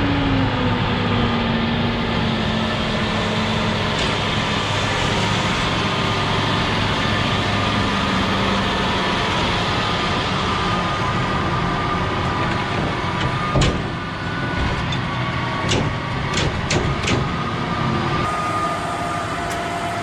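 Large vehicle engine running steadily, its pitch settling lower in the first couple of seconds, with a few sharp knocks and clicks about two-thirds of the way through.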